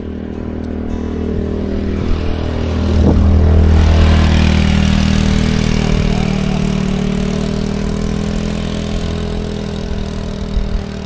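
Motor scooter engine passing close by, loudest a few seconds in, then fading steadily as it rides away up the road.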